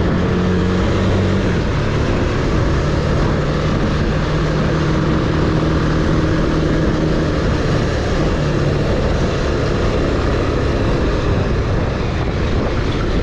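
Bajaj Pulsar 220F's single-cylinder engine running at a steady cruise under a constant rush of riding noise, its pitch holding nearly even.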